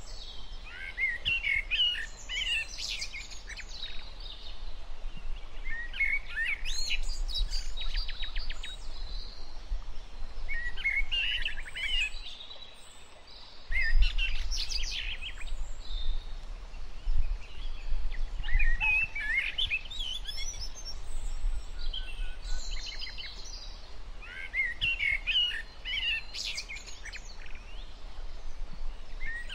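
A songbird singing short, rapid warbling phrases, one every few seconds, over a steady low rumble.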